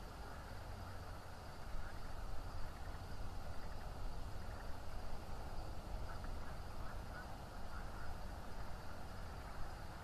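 Steady outdoor night background from the nest camera's microphone: a low rumble with hiss. It grows a little louder about two seconds in, and a few faint short calls sound in the second half.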